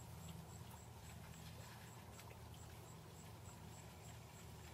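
Near silence: a faint steady low hum with a few soft clicks and a faint, evenly pulsing high tone.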